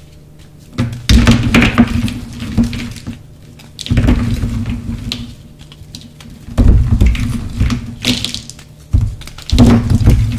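Dyed gym chalk blocks crushed and crumbled by hand into powder, crunching in four bursts with short pauses between.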